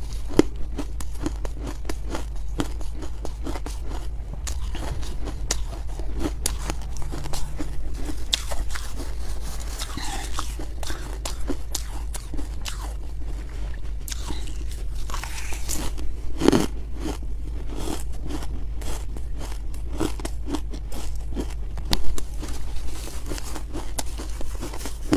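Close-miked crunching of crumbly freezer frost ice being bitten and chewed: a dense, unbroken run of small crisp crunches, with one louder crunch about two-thirds of the way through.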